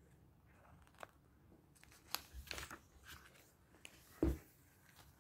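Pages of a thick, glossy booklet being turned by hand: faint paper rustles and light ticks, then a soft, louder thump about four seconds in as a page is flipped over.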